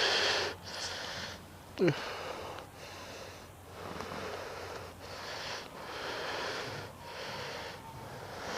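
Heavy breathing close to the microphone, a hissing in-and-out about once a second, with one short, loud pitched squeak about two seconds in.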